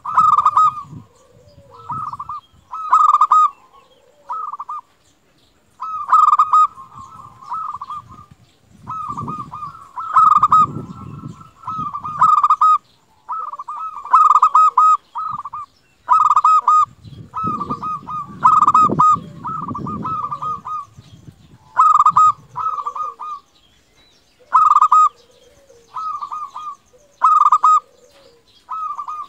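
Zebra dove (perkutut) singing its trilled cooing song: short warbling phrases repeated over and over, every second or two, with brief pauses between.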